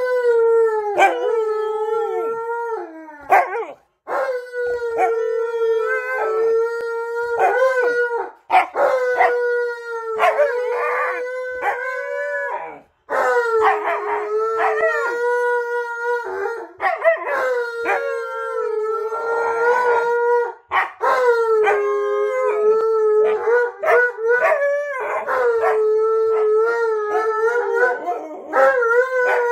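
A Siberian husky and an Alaskan Malamute howling together: long, held howls with their voices overlapping, broken by short pauses between howls.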